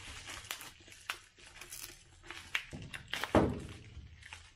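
Parts and packaging being handled: crinkling and rustling with scattered small clicks and knocks, and one heavier thud a little over three seconds in.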